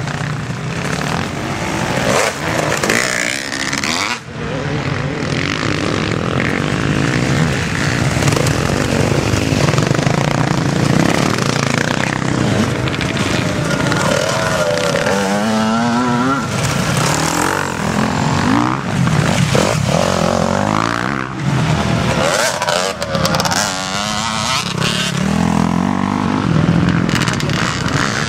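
Enduro dirt bike engines revving as the bikes ride past one after another on a grass and dirt track, their engine note rising and falling. One bike passes close about halfway through.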